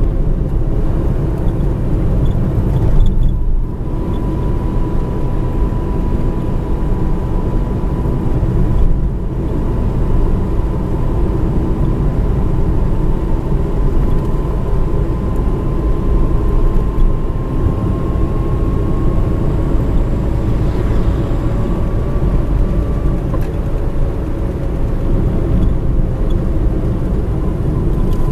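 Manual-transmission car driving along a road, heard from inside the cabin: a steady rumble of engine and tyre noise with a faint whine. It dips briefly twice in the first ten seconds.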